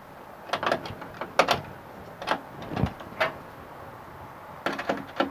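Short clicks and scrapes of a screwdriver and a copper wire being worked into a lug terminal inside a metal breaker panel, as the red wire is seated and its lug screw tightened, with a cluster of clicks near the end.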